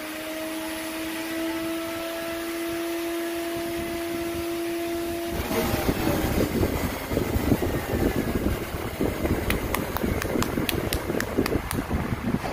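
Electric wood router mounted under a homemade router table, running with a steady whine whose pitch creeps slightly upward, cutting off about five seconds in. Close rustling and handling noise follows, louder than the router, with a quick run of sharp clicks near the end.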